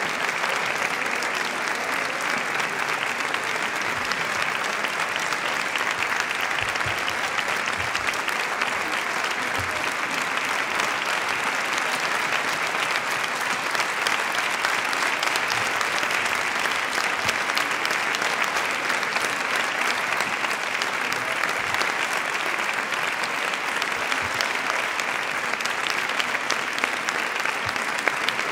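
Audience and choir applauding steadily, a long unbroken round of hand-clapping.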